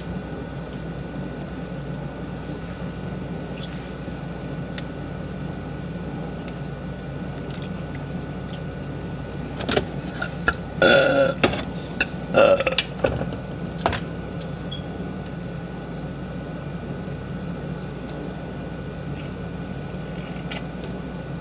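A young woman burping twice near the middle, two loud belches about a second and a half apart. A few short clicks come before and after them, over a steady low background hum.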